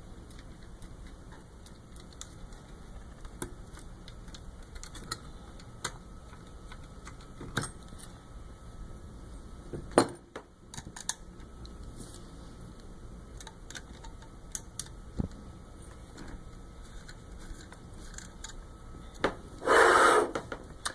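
Screws being driven back into a flowmeter's circuit board and small metal parts handled: scattered light clicks and rubbing, a sharp click about ten seconds in, and a louder rasping scrape lasting about a second near the end.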